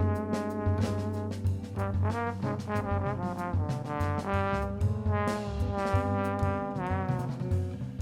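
Alto saxophone playing a melody over a backing track with bass and drums: held notes broken by quick runs, with vibrato on a note near the end.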